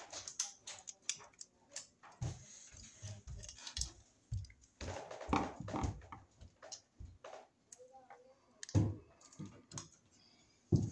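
Irregular light clicks and small knocks of a screwdriver and a plastic single-pole circuit breaker being handled, as the breaker's terminal screw is taken out. There are a few louder knocks, about five seconds in, near nine seconds, and just before the end.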